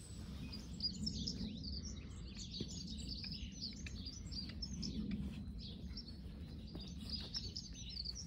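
Small birds chirping and twittering in a busy, continuous chorus of short high calls, over a steady low background rumble.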